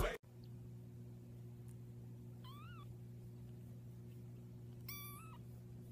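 Very young kitten mewing twice, thin high-pitched mews about two and a half seconds apart, the first rising and falling, the second slightly longer. A faint steady low hum runs underneath.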